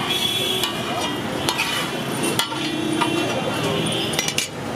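Metal spatula scraping across a large flat street-food griddle, with a scraping hiss broken by several sharp knocks of the blade on the metal.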